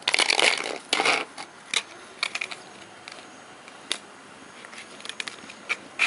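A puppy playing on paving stones: a scraping, crunching rustle in the first second, then scattered light clicks and taps.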